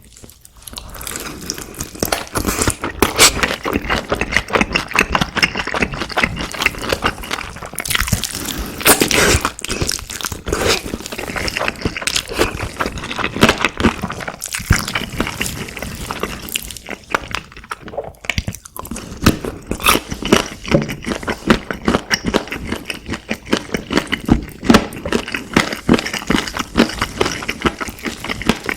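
Close-miked chewing and crunching of crispy fried food, a dense run of crackly bites and chews.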